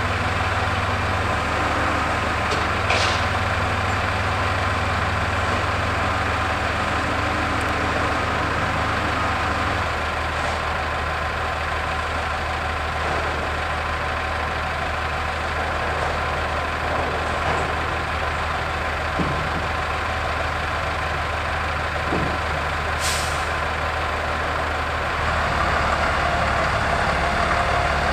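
Heavy diesel engines of the scrapping equipment, the big wheel loader and crane, running steadily, growing a little louder near the end. A short hiss of released air sounds twice, once early and once a few seconds before the end.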